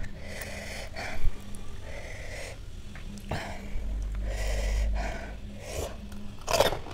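A person eating very spicy pani puri breathing noisily and sniffing, several short breaths in quick succession, with a sharp knock about a second in.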